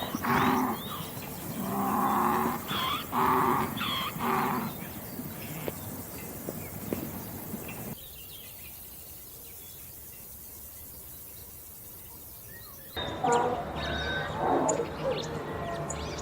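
Farm animals calling: a run of short, loud, pitched calls repeated every second or so for the first few seconds, then fading. The sound drops to a quiet background, and near the end a burst of short bird chirps and calls begins.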